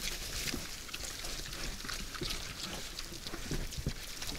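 Several wild boars feeding with their heads down: a steady run of crunching, crackling chewing and rooting noises, with a few short low grunts near the end.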